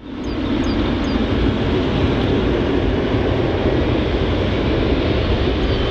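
Boeing 777-300ER's GE90-115B turbofan engines on the takeoff run: a loud, steady jet roar that swells in over the first half second.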